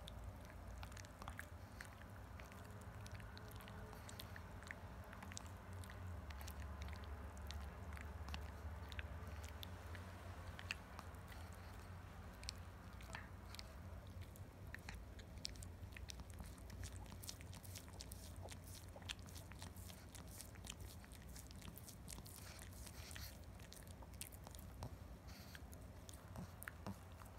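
Pekingese dog gnawing and chewing a hard chew stick: a steady run of small, irregular crunching clicks and mouth sounds, fairly faint.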